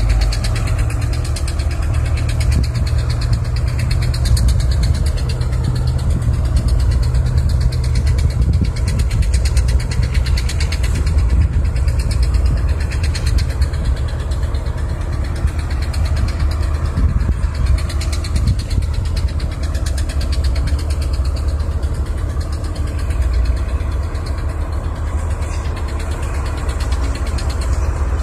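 Caterpillar 320 hydraulic excavator's diesel engine running steadily at a low, even speed, with an even low pulsing throughout.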